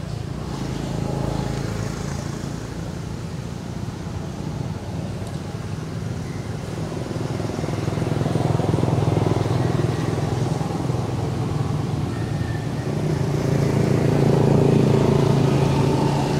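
Motor vehicle engine running, a low steady hum that grows louder around the middle and again near the end.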